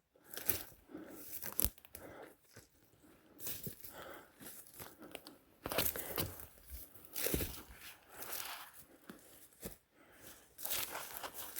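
Footsteps crunching through dry forest-floor debris and brush in uneven spurts, with a sharp snap about one and a half seconds in.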